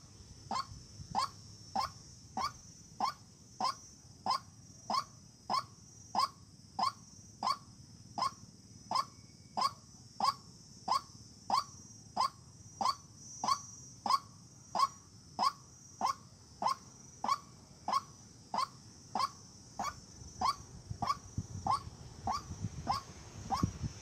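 White-breasted waterhen giving its monotonous call: one short, slightly rising note repeated at an even pace about one and a half times a second. A steady high insect buzz runs underneath, and there is some rustling near the end.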